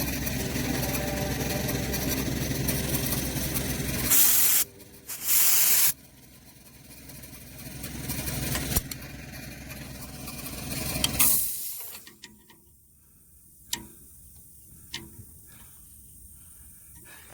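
Air compressor running steadily. About four seconds in it stops and two short, loud blasts of compressed-air hiss follow, then a longer hiss that builds and cuts off suddenly. A few sharp clicks come near the end.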